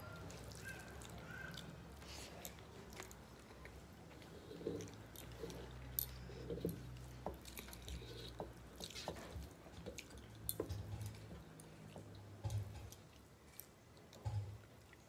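Close-miked chewing and the soft, wet squish of fingers mixing rice on metal plates, with many small scattered clicks over a faint low hum.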